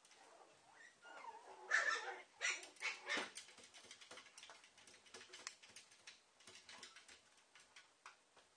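Papillon puppies whimpering and yipping as they play-fight, loudest about two seconds in, followed by soft scuffling and clicking.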